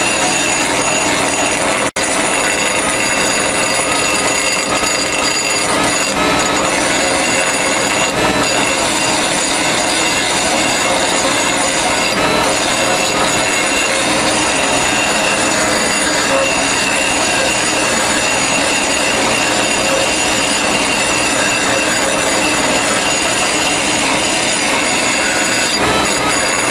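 Air die grinder running at high speed, its small grinding stone held against the edge of a steel mower blade: a steady, high-pitched whine and grinding squeal. The sound cuts out for an instant about two seconds in.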